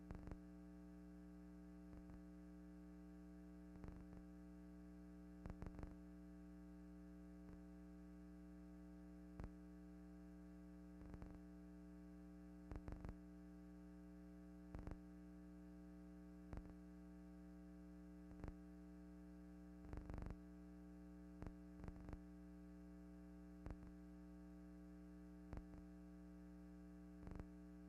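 Near silence: a steady electrical hum with short faint clicks every second or two.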